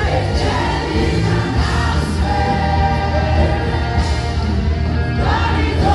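Gospel choir singing with a live band, over a strong, steady bass.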